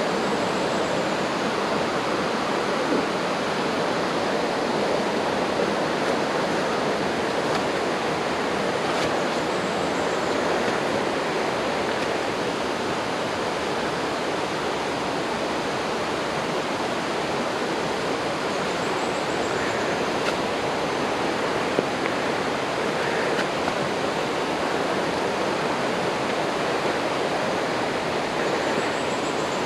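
Steady rushing of running water, like a stream or small waterfall, an even wash with no breaks. A faint high chirp repeats about every nine seconds.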